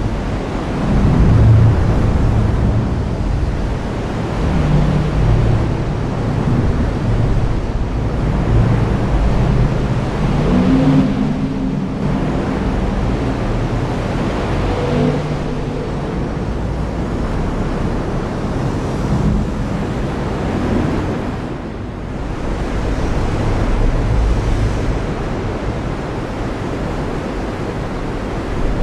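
Heavy rain falling steadily, with a low rolling rumble of thunder underneath that swells and fades.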